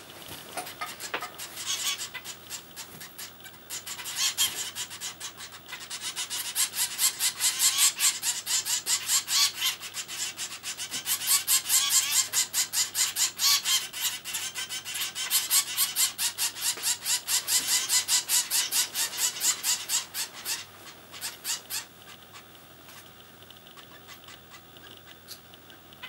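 Zebra finch nestlings about eleven days old begging: a fast, continuous run of short, high calls that builds up over the first few seconds, is loudest through the middle and stops a few seconds before the end.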